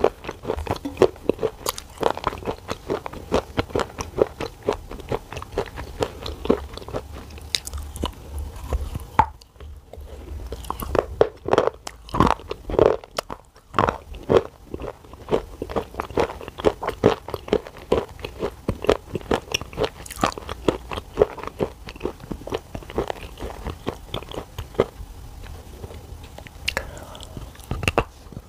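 A person chewing dry black shale clay: a dense run of sharp crunches with brief pauses, and a bite into the clay block near the end.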